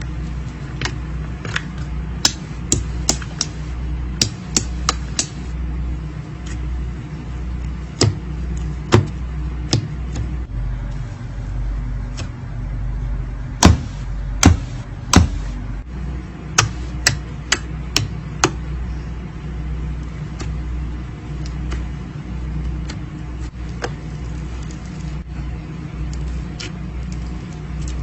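Slime being pressed and poked, giving sharp pops and clicks at irregular intervals, several in quick runs, over a steady low rumble.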